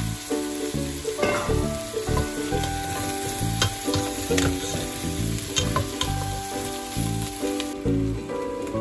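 Vegetables and raw potato chunks sizzling in a hot stainless steel pot as they are stirred with a metal utensil, with scrapes and light clinks against the pot, over soft background music.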